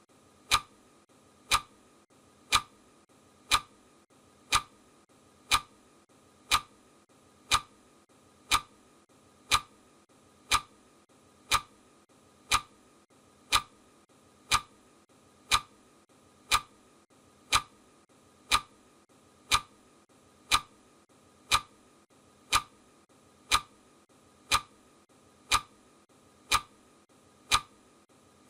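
Clock ticking steadily, one short sharp tick a second, every tick alike: the tick track of a countdown timer.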